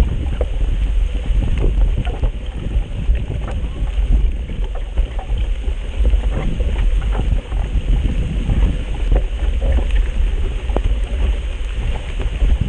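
Wind buffeting the microphone with a steady low rumble while riding a mountain bike on a dirt trail. Many small clicks and rattles of the bike and tyres run through it.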